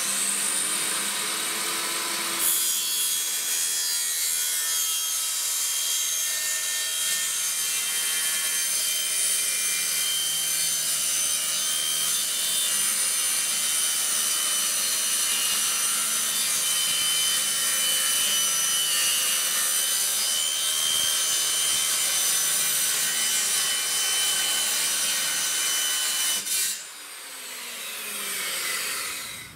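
Corded circular saw spinning up and cutting steadily along a straight line through a clear plastic sheet. Near the end it is switched off and winds down.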